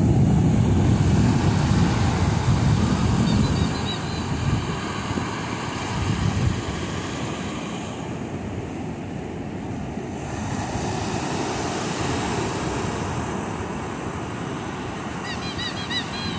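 Ocean surf breaking and foam washing up the sand, a steady rushing wash. Wind buffets the microphone with a heavy low rumble for the first few seconds, then eases.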